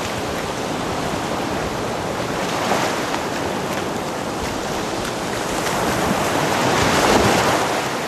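Ocean surf washing up a beach, a steady wash of breaking waves and foam that swells louder as a wave surges in near the end, with wind on the microphone.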